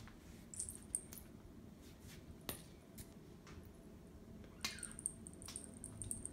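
Quiet, scattered light taps and brushing of a feather wand cat toy striking a hardwood floor as a cat swats at it. A few sharp clicks stand out, and a faint high thin tone comes in about two-thirds of the way through.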